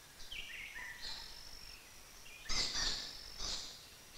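Birds calling: high whistled notes, one run stepping down in pitch, then two louder, harsher calls about a second apart.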